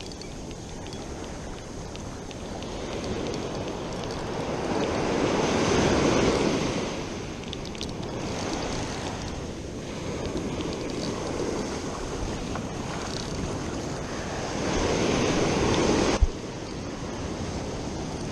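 Ocean surf washing onto a beach, with wind on the microphone. Two waves break louder, about five seconds in and near the end. The second cuts off suddenly with a sharp knock.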